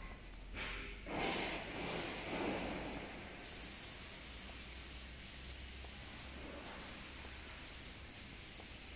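Factory workshop ambience: a rushing hiss for about two seconds near the start, then a steady high hiss with a few short breaks.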